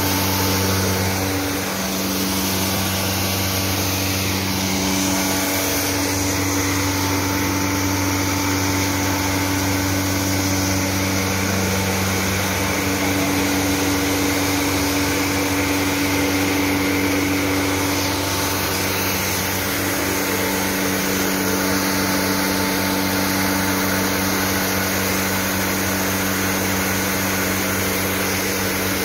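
Industrial processing machine and its blower running steadily: a continuous electric-motor hum under the rushing air of the blower fan.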